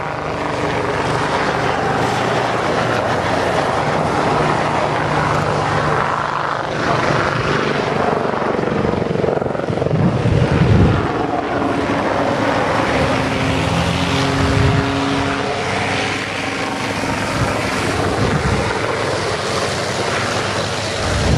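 Helicopter flying a display, giving a steady rotor and engine noise that peaks in loudness a little before halfway through.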